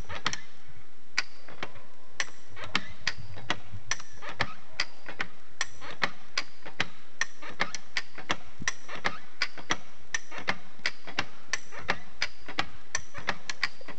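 Trewhella monkey grubber, a hand-lever stump and tree winch, clicking as its lever is pumped: a sharp metallic click roughly every half second as the pawls and chain take up each stroke.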